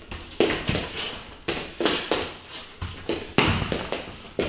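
A football being tapped rapidly between the feet, with trainers stepping on a hard floor: quick sharp knocks, about three a second, each with a short echo from a bare room.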